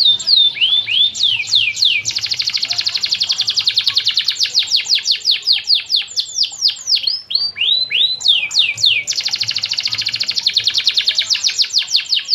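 Domestic canary singing a long, unbroken song. Fast rolling trills of rapid, downward-sweeping notes are broken twice by short runs of slower, separate swooping notes.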